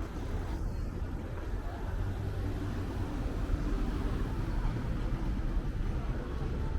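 Street traffic: a steady low rumble of vehicle engines that grows a little louder after about two seconds.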